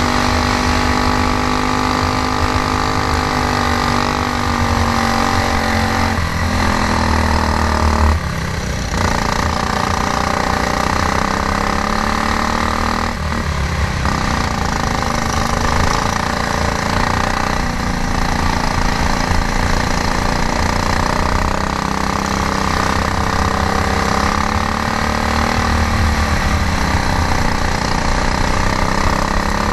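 Stock Honda GX390 single-cylinder four-stroke kart engine running hard on track. Its pitch sags and climbs again several times as the throttle is lifted and reapplied, with short breaks at about eight and thirteen seconds in.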